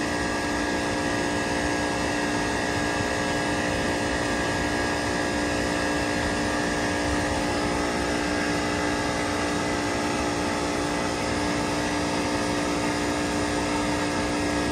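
Daikin AGZ air-cooled chiller running with one 43 hp compressor on circuit one and four condenser fans at about 30 percent: a steady hum made of several held tones over an even hiss.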